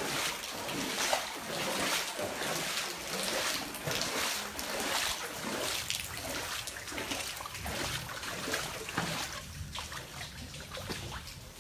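Footsteps wading through shallow, muddy floodwater, splashing and sloshing with each step, a little over one step a second.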